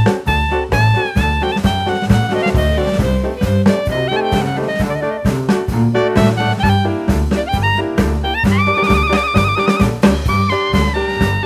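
Background music: an upbeat jazz or swing tune with brass and a steady drum beat, with a held, wavering horn note near the end.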